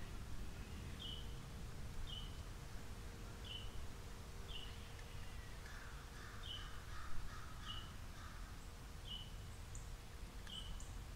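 Wild birds calling: one bird repeats a short, high, downslurred note about once a second, and a run of lower, harsher calls comes in the middle.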